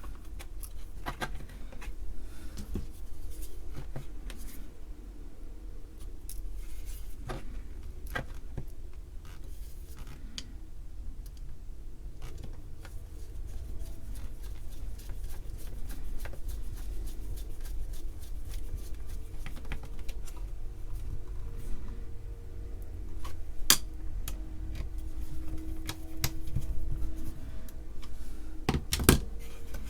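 Scattered small clicks and taps of a screwdriver and small metal parts being handled while a screw with a lock washer is fitted into the cassette recorder's chassis, with a sharp click a little past the middle and a few knocks near the end, over a steady low hum.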